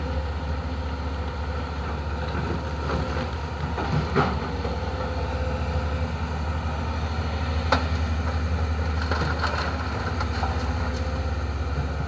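Hyundai HX220S excavator's diesel engine running steadily, with a few knocks and clanks from the work, the sharpest about two-thirds of the way through.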